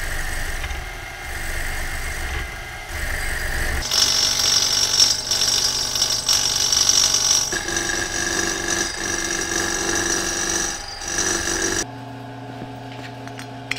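Milling machine running an end mill into the fins of a metal heat sink: steady motor and spindle noise, with a high-pitched cutting note added from about four seconds in. It cuts off suddenly near the end, leaving only a low steady hum.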